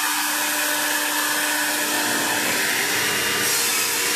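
Large CNC router for solid wood running steadily, a continuous rushing machine noise with a steady hum under it. The hiss grows brighter about three and a half seconds in.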